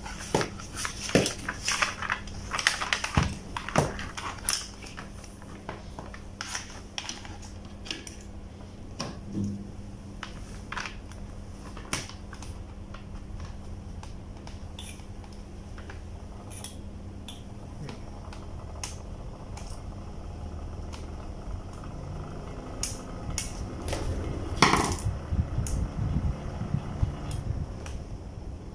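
Plastic housing and control-panel parts of an electric fan heater clicking and knocking as they are handled and fitted back together by hand, over a steady low hum. The clicks come thick in the first dozen seconds and again near the end, loudest about 25 seconds in.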